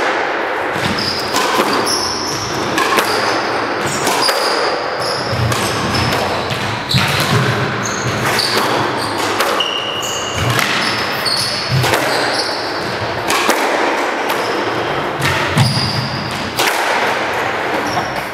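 Squash rally: the ball repeatedly smacks off rackets, walls and floor in sharp cracks every second or so. Between the hits come short high squeaks of sneakers on the hardwood court floor.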